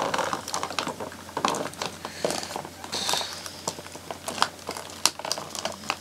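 Hands working a doll free of its cardboard and plastic packaging: irregular clicks, taps and crinkles.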